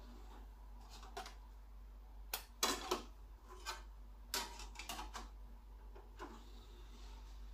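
Compact discs being handled in the open disc tray of a Schaub Lorenz SL2006 DVD player: a string of light plastic clicks and taps as one disc is lifted out and another laid in, loudest about three seconds in.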